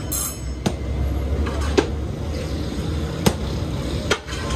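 Steady low rumble with a few sharp knocks at irregular intervals, four in all.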